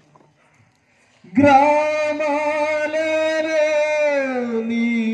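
Christian worship song: after a short pause, a singer holds one long sung note that slides lower near the end.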